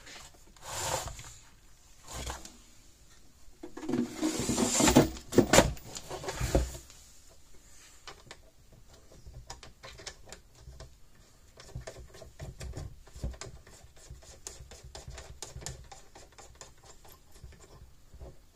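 Plastic case of a fence energizer being handled and fitted over its chassis: knocks and rubbing, loudest between about one and seven seconds in, then a long run of light, irregular clicks and scratches.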